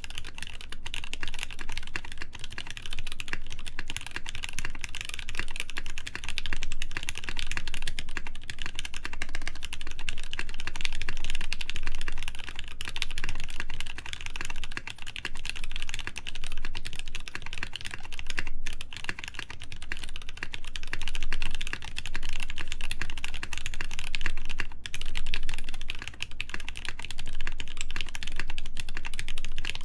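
Steady, fast typing on a Hineybush Ladybird mechanical keyboard with lubed Gateron Ink switches, an FR4 plate and PBT keycaps: a dense, continuous stream of keystrokes.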